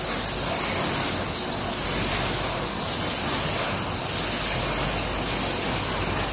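Paper cone making machinery running, a steady, noisy mechanical din.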